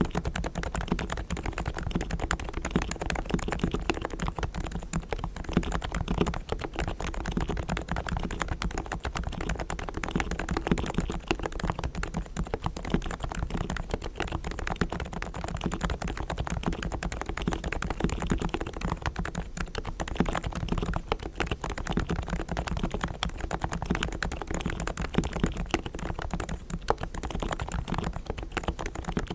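Continuous fast typing on a Realforce R3 tenkeyless keyboard with low-noise 45 g Topre electrostatic capacitive switches. The springs and sliders are fully lubed with Krytox, and sound-dampening foam is fitted inside. The keystrokes come in a dense, unbroken run.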